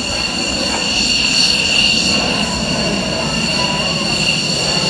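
F-15J's twin Pratt & Whitney F100 turbofan engines whining at taxi idle as the jet rolls by. Several steady high whining tones sit over a low rumble, swelling slightly a second or so in.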